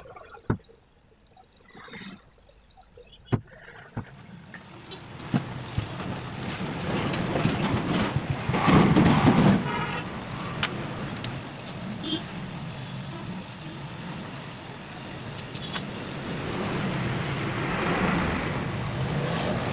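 A few sharp metallic clicks from the cast-aluminium alternator housing and its parts being handled. Then a rumble of passing motor traffic builds, swells loudest about nine seconds in, eases, and swells again near the end.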